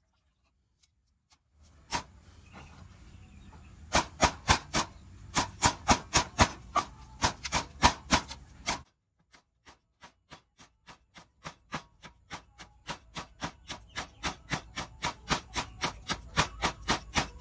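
Sharp knocks struck in a steady, rapid rhythm of about three to four a second. They stop abruptly about nine seconds in, then start again and grow louder toward the end.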